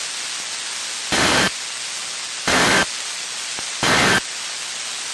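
Three short, evenly spaced bursts of EAS/SAME digital data tones over steady radio static hiss. They are the end-of-message (EOM) code that closes an emergency alert broadcast.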